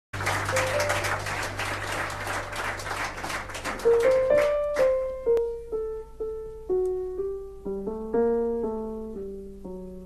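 Audience applause for the first four to five seconds, dying away as a piano begins a slow introduction. The piano plays separate notes and chords that strike and ring out.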